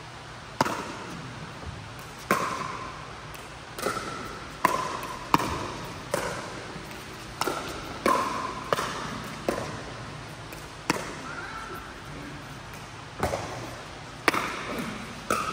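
Pickleball rally: sharp pops of paddles striking the hollow plastic ball, with the ball bouncing on the court, about one hit a second with a short pause about two-thirds of the way in. Each pop rings briefly and echoes in a large hall.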